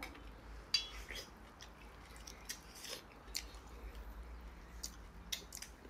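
A man chewing open-mouthed and lip-smacking as he eats meat off stewed pork bones: irregular wet smacks and clicks, the sharpest about three-quarters of a second in.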